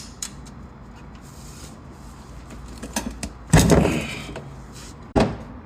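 Metal clicks and clanks of a wrench working the old drain bolt out of the oil pan, with a louder clatter about three and a half seconds in and a sharp knock near the end.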